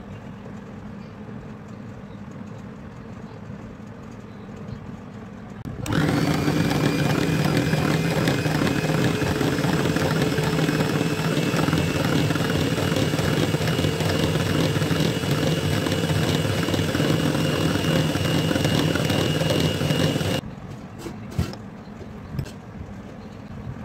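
Electric hand mixer switched on about six seconds in and running at a steady speed for about fourteen seconds, its beaters whipping cream in a bowl, then switched off abruptly. A few light knocks follow near the end.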